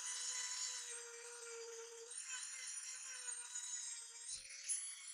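Handheld rotary tool with a small sanding drum running at a steady high whine while sanding the edge of a wooden knife handle, the pitch wavering slightly as the drum bears on the wood. A brief soft thump just past four seconds in.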